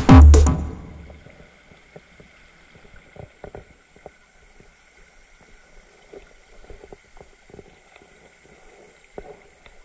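Electronic music cuts off about half a second in. Then a shallow stream runs faintly over rocks, with scattered small splashes and knocks close by.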